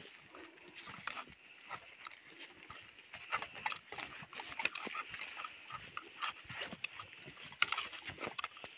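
Footsteps crunching and shuffling through dry leaf litter and undergrowth on a forest trail, in irregular crackles, with a steady high-pitched drone underneath.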